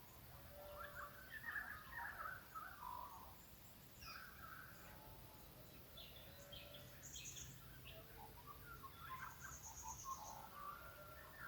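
Several wild birds calling faintly in an early-morning chorus: scattered chirps, short whistles and trills overlapping, busiest in the first few seconds, with a couple of high rattling trills later on.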